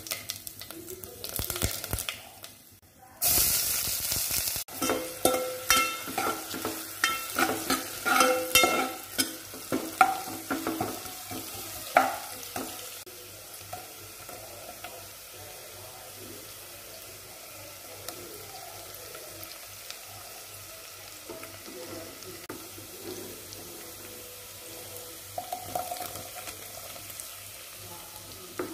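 Onion, whole spices and garlic frying in hot oil in an aluminium pot: a loud burst of sizzling about three seconds in as food hits the oil, then a run of sharp crackles and clicks, settling into a steady, quieter sizzle.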